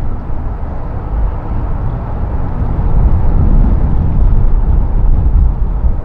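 Gusty wind buffeting the microphone: a loud, uneven low rumble that swells about three seconds in.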